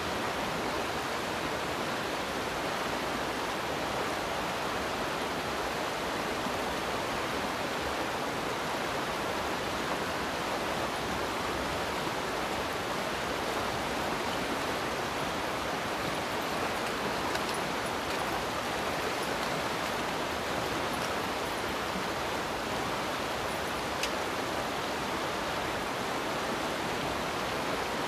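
Fast, shallow river rushing steadily over rocks and riffles, a constant even rush of water.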